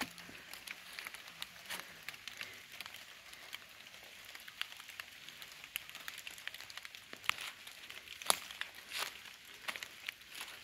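Footsteps crunching through dry fallen leaves on a dirt path, a run of irregular crackles and snaps, the sharpest ones a little past the middle.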